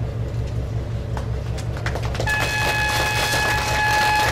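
A ferry's horn sounds one steady blast of about two seconds, starting about halfway through, as the ship is sent off on its first sailing. Hand clapping and a steady low engine rumble run under it.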